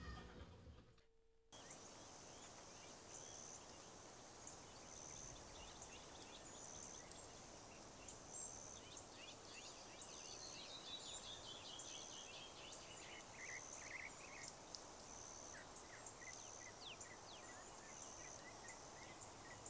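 Faint outdoor ambience: a steady low hiss with small birds chirping, high short chirps repeating about once a second, and a falling run of notes about ten to thirteen seconds in.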